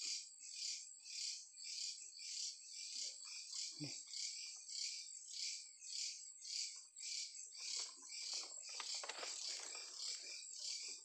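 Night insects calling in a high, evenly pulsing chorus of about two to three pulses a second. About eight seconds in, dry bamboo leaves and litter rustle briefly.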